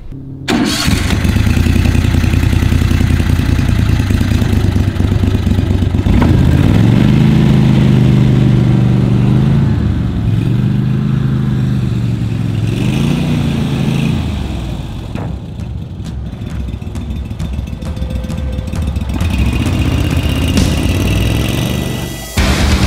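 Gator-Tail GTR40XD-EFI 40-horsepower mud motor running under way, its pitch rising and falling several times as the throttle is opened and eased back.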